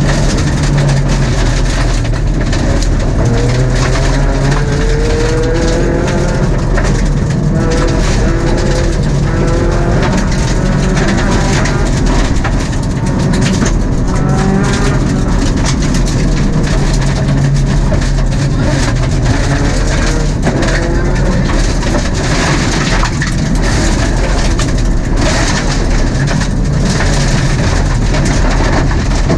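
Mitsubishi Mirage rally car's MIVEC four-cylinder engine at full stage speed, heard inside the cabin, its pitch climbing and dropping again and again through acceleration and gear changes. A constant hiss and rattle of tyres and stones on loose gravel underneath.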